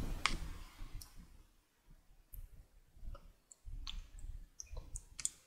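Red plastic spoon scooping soft pudding in a plastic cup, with several small sharp clicks at irregular moments as the spoon knocks against the cup, over soft handling sounds.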